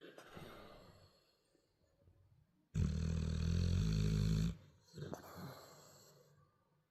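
Bullmastiff snoring in its sleep. A soft breath fades away, then a loud, low snore lasts about two seconds near the middle, followed by another softer breath tailing off.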